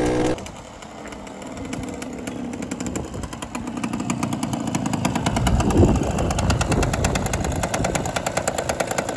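A 1974 Suzuki RV125's single-cylinder two-stroke engine running at low speed with a rapid, even popping, after a brief louder rev that cuts off at the very start. The popping grows louder over the first six seconds as the bike rides up, then goes on ticking over with the bike stopped.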